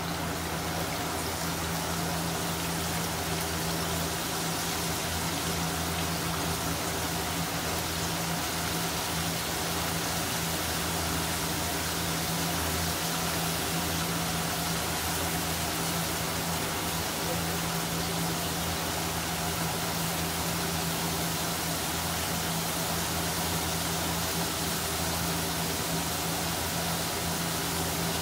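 Oil sizzling steadily as floured fish pieces deep-fry in a wok, over a steady low hum.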